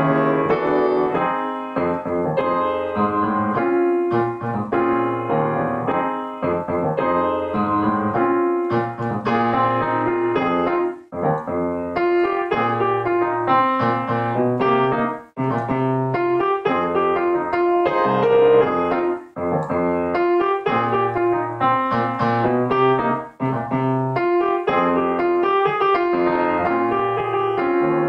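Yamaha grand piano played solo with both hands: a steady, rhythmic run of chords under a melody, with a few very short breaks between phrases.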